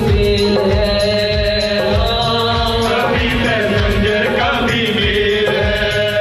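Devotional bhajan music: a man singing into a microphone over sustained chords and a steady percussion beat.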